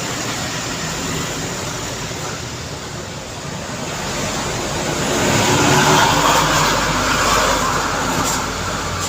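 Busy city road traffic with heavy trucks: a steady rumble of engines and tyres, swelling as a large vehicle passes close about six seconds in, then easing.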